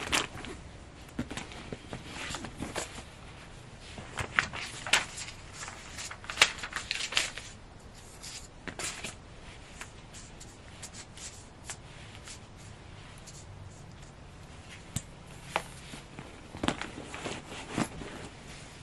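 Objects being handled and moved about: irregular rustles, clicks and light knocks, most of them about four to seven seconds in.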